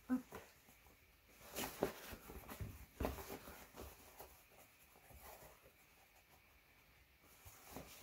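Cotton patchwork fabric and a quilted lining rustling and swishing in short irregular bursts as a sewn pouch is handled and turned right side out.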